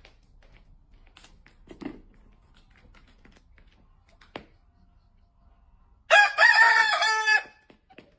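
A rooster crows once, loud and lasting just over a second, about six seconds in. Before it there are only faint scattered ticks and taps.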